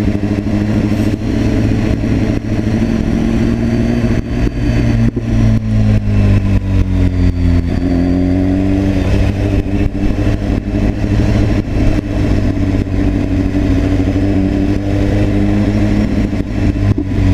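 BMW S1000RR inline-four engine running under way, its pitch sagging and climbing again as the revs drop and rise.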